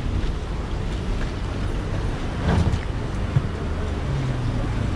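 Steady low outdoor rumble of wind buffeting the microphone over street noise, with a brief louder patch about halfway and a single sharp knock shortly after.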